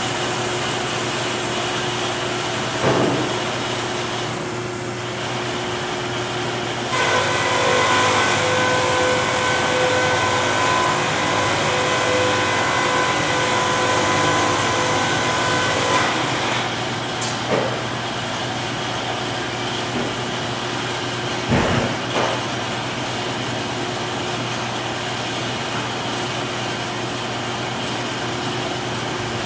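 Sawmill machinery running steadily: a Morgan edger ripping walnut boards, with a Wood-Mizer LT50 band sawmill running in the same shop. Partway through, a steady whine of a saw blade cutting rises over the drone for several seconds, and wood knocks sharply a few times.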